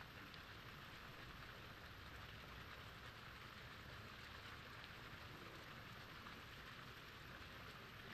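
Near silence: a faint, steady hiss of background noise with no distinct events.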